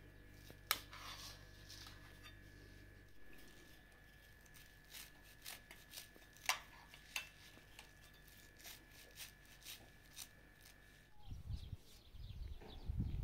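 Irregular crisp snips and clicks as bunches of fresh herbs are cut by hand over a plastic colander, with a faint steady hum behind. Near the end, low uneven rumbling, like wind on the microphone, takes over.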